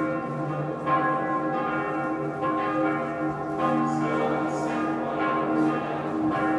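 Church bells pealing: several bells struck one after another, their tones ringing on and overlapping.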